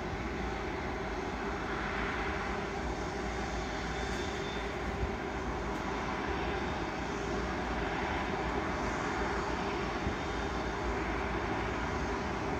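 Twin turbofan engines of a SriLankan Airlines jet airliner running steadily at low power as it taxis, a continuous jet engine noise.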